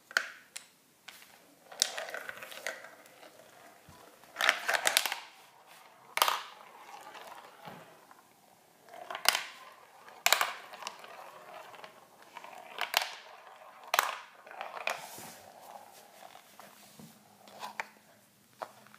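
A steel marble rolling through a plastic marble run: a light rattling roll along the tracks and spiral funnels, broken by a dozen or so sharp clacks as it drops and knocks from piece to piece.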